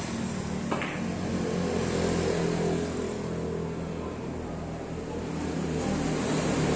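A single sharp click about a second in, a carom billiards cue striking the cue ball, over a steady low motor hum.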